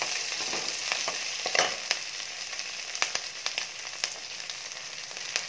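Tempering frying in hot oil in a stainless steel kadai: curry leaves, green chillies and dals sizzling with a steady hiss and many sharp pops and crackles. A wooden spoon stirs the tempering at the start.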